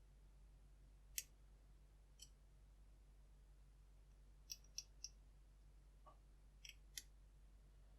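Faint, irregular clicks of a flag pick working the pins of a Mul-T-Lock Junior pin-in-pin dimple padlock cylinder held under tension, while the picker tries to set the outer pins. There are about eight single clicks, with a quick run of three around halfway.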